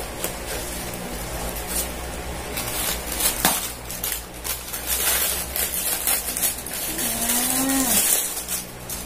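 Plastic mailer pouch crinkling and tearing as it is cut and pulled open, with scratchy rustles that grow busier about halfway through. Near the end comes a short hum of about a second that rises, holds, then drops in pitch.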